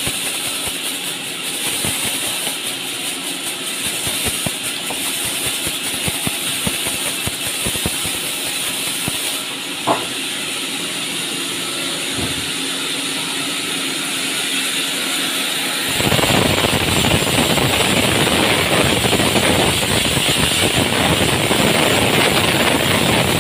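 Sawmill band saw running steadily, with a single sharp knock about ten seconds in. About two thirds of the way through, the sound grows louder and deeper as the blade cuts into a log being fed along the table.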